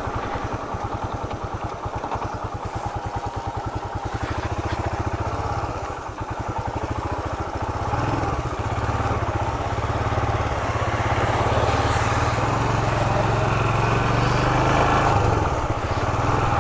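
Royal Enfield Himalayan's single-cylinder engine running while riding, a steady, fast thump of firing pulses. The engine note dips briefly about six seconds in, then rises and holds higher from about eight seconds.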